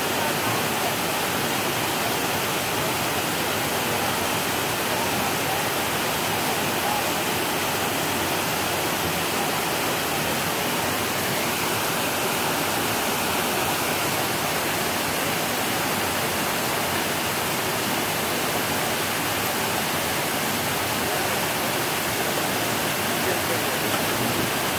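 Steady rush of a waterfall cascading over rock ledges into a pool.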